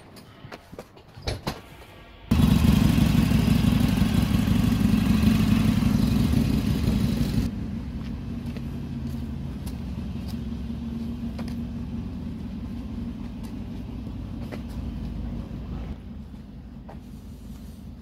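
Outdoor street noise: a loud, steady rumble that starts suddenly after a few light taps, then drops to a lower steady hum about five seconds later.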